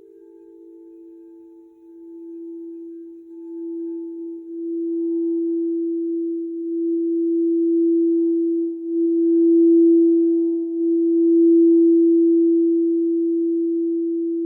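Quartz crystal singing bowl being sung around its rim: one steady low tone that builds gradually and swells louder in waves, with no sharp strikes. A second, higher tone fades away in the first couple of seconds.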